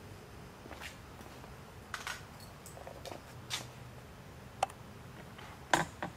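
Scattered light clicks and taps, with two sharper clicks near the end, over a faint low hum.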